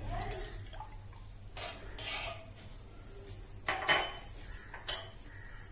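A metal spoon stirring rice in water in a metal cooking pot, clinking against the pot's side several times.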